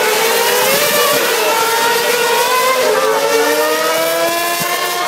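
Several Formula 1 cars' 2.4-litre V8 engines accelerating at a distance, their overlapping pitches rising slowly over a steady background rush.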